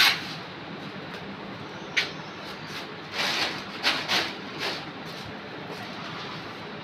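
A sharp click about two seconds in, then a few short scraping strokes: a trowel and hands working cement mortar on the back of a floor tile.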